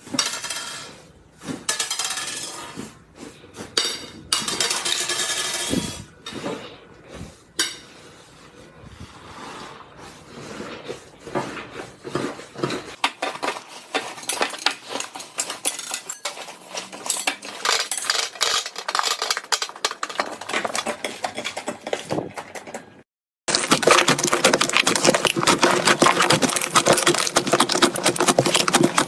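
Slime being squeezed and handled, giving irregular crackling, clicking and popping. About six seconds before the end there is a short break, after which the crackle turns dense and continuous.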